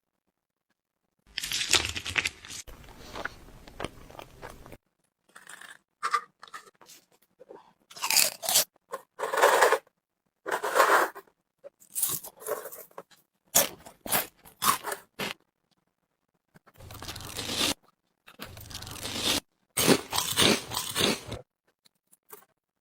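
Close-miked eating sounds: crunchy bites and chewing that come in many separate bursts, with short silent gaps between them.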